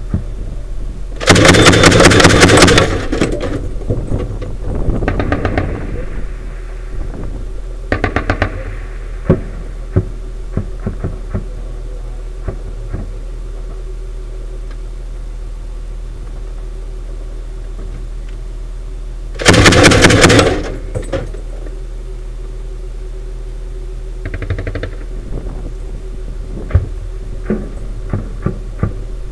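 MK-19 40 mm automatic grenade launcher firing bursts of rapid shots: a long burst about a second in and another about twenty seconds in, with shorter bursts and single cracks between, over the steady low hum of the vehicle's engine.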